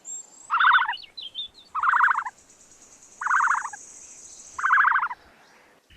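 A bird calling: four short, rattling, gobble-like calls, each about half a second long and spaced about a second and a half apart, with a faint thin high buzz in the middle.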